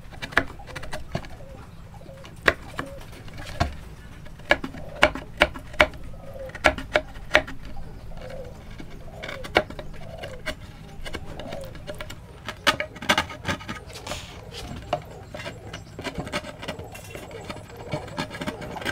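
A chisel pushed by hand chops and pares waste wood from between dovetail pins, giving a run of sharp, irregular clicks and cracks. A dove coos in the background in the middle and again near the end.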